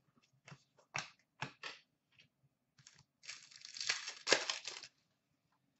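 Trading cards being handled: a few light clicks and snaps, then about a second and a half of crinkling and tearing as a card pack wrapper is opened or crumpled.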